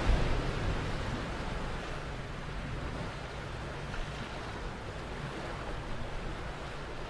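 Ocean surf washing on the shore, with low wind rumble on the microphone; loudest at the start, then easing to a steady wash.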